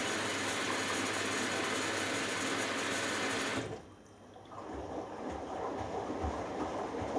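Hoover Dynamic Next washing machine in its first rinse: water rushing into the machine cuts off abruptly a little over halfway through as the fill stops. The drum then turns with water sloshing and soft low thumps.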